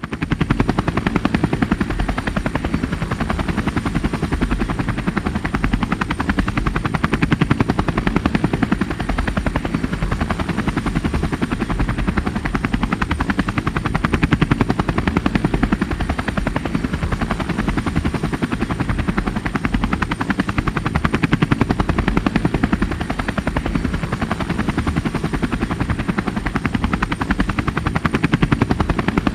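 Helicopter rotor blades chopping in a rapid, steady beat, with a thin, steady high whine above it.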